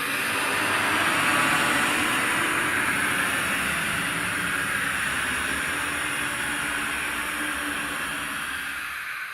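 Horror sound effect: a long rushing hiss that swells in, holds for several seconds and fades out near the end.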